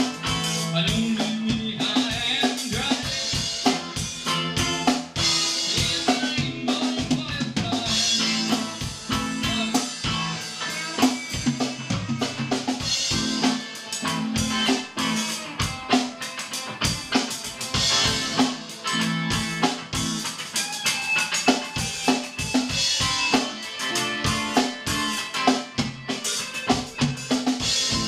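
A live rock band playing an instrumental passage: a drum kit beats steadily, with snare and bass drum hits, over sustained guitar and bass notes.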